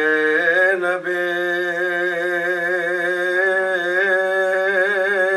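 A man's voice chanting a nauha, the Shia lament for Imam Hussain's family, unaccompanied, drawing out one long held note whose pitch wavers slowly, with a small step up in pitch about half a second in.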